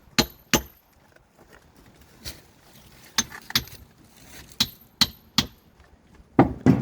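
Sharp knocks struck in short groups of two or three, about a third to half a second apart, with quiet between; the loudest pair comes near the end.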